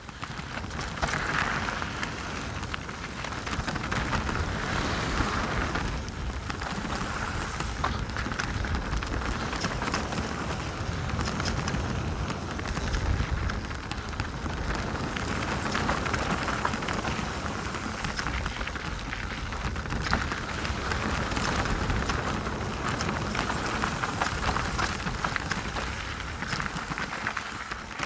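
Canyon Strive enduro mountain bike riding down a rocky trail: a continuous rushing clatter of tyres over stones and gravel, with frequent sharp knocks and rattles from the bike, rising and falling with the terrain.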